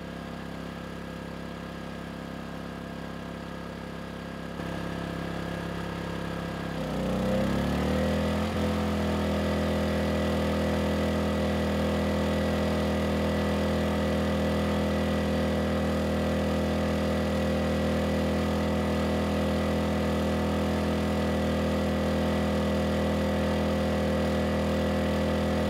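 Erayak 4500P inverter generator running steadily under load. About seven seconds in its engine pitch sags, then climbs over a couple of seconds to a higher, louder steady speed as it takes on a 3000-watt load, working quite a bit harder.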